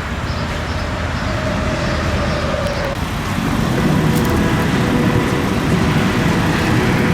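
Car driving on the highway: steady road and engine noise, growing louder a little past halfway.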